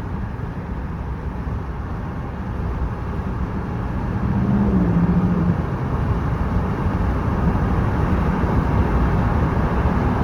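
Wind and road noise through an open car window while driving alongside a moving freight train. The rush gets louder about four seconds in.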